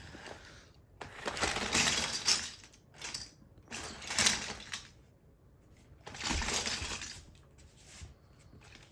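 Loose plastic Lego bricks clattering and crunching under the wheels of a remote-control monster truck as it drives over a pile of them, in four bursts with short quiet pauses between.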